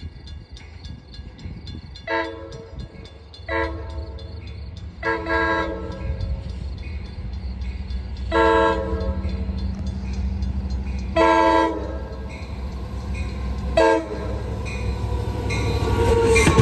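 Diesel locomotive's air horn sounding six blasts, a mix of short and longer ones, as the train approaches over its growing engine rumble. In the last second or so the train comes close and the wheel and rail noise rises sharply.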